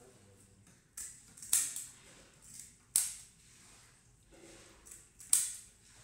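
Fish scaler scraping the scales off a whole fish: four sharp, hissing scrape strokes, two close together about a second in, one about three seconds in and a loud one near the end.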